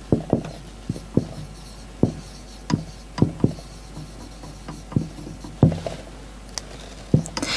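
Dry-erase marker writing on a whiteboard: a string of short, irregular taps and scrapes as the letters are stroked out.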